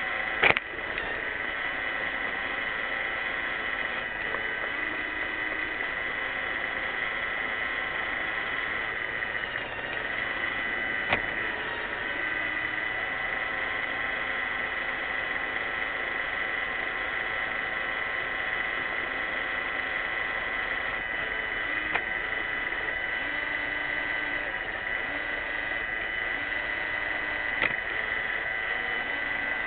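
iRobot Roomba 600-series robot vacuum running: a steady whine from its motors, with a few sharp knocks spaced several seconds apart.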